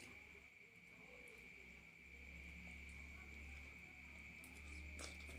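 Near silence: quiet room tone with a faint, steady high-pitched whine and a low hum, and a couple of soft clicks near the end.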